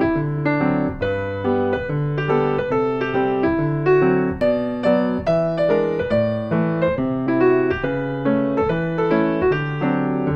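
Background music: a light keyboard tune, electric-piano-like, with notes and chords played at an even pace.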